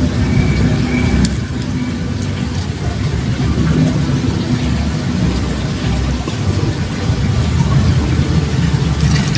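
A loud, steady low rumble with no distinct events.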